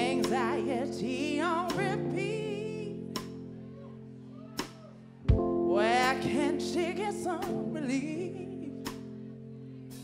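Female lead vocalist singing live with a soul band, sliding through ornamented runs over held chords. The full band hits a chord at the start and again about five seconds in, and each chord fades away.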